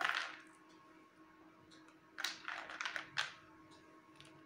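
Small plastic parts being handled and set down on cardboard, with light clicks and plastic-wrapper rustling: a soft burst at the start and a cluster of quick clicks about two to three seconds in.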